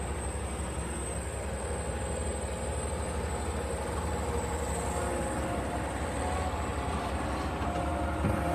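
Concrete mixer truck running steadily, its diesel engine turning the drum while discharging concrete into a skid-steer bucket. The low, even rumble gets slightly louder near the end.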